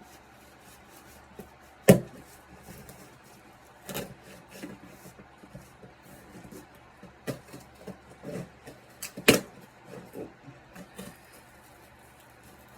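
Scattered knocks and clicks of an action figure's packaging being handled, two of them sharper and louder, about two seconds in and near nine seconds.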